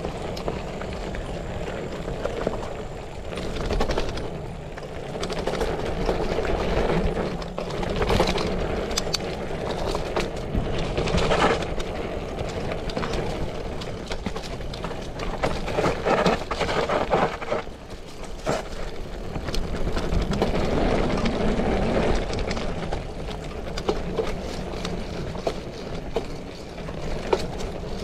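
A bicycle ridden over a dirt trail: steady tyre and riding noise with a low rumble, and frequent clicks and knocks as the bike rattles over bumps.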